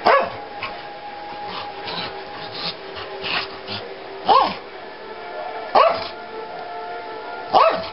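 A large dog barking four times in short, loud barks spaced a second or more apart, with scratching and rustling of couch fabric between the first and second bark as she digs and roots into the cushions.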